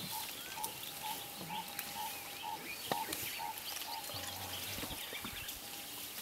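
Wild bush ambience: a short piping note repeated evenly about twice a second for the first few seconds, with scattered small bird chirps over it.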